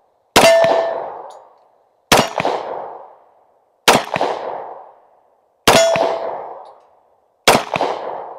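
Five shots from an FN 510 10mm Auto pistol, fired slowly and evenly about every two seconds. Each sharp crack is followed by an echo that dies away over about a second.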